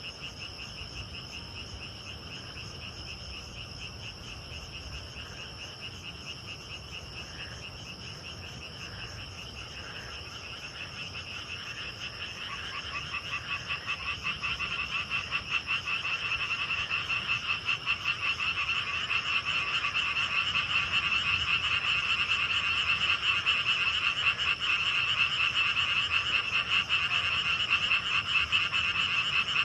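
A dense night chorus of frogs calling with rapid pulsing croaks over a steady trill of grass insects. The frog chorus swells and grows clearly louder from a little under halfway through.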